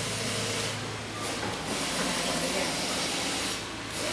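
Steady hiss with a constant low hum and faint indistinct voices.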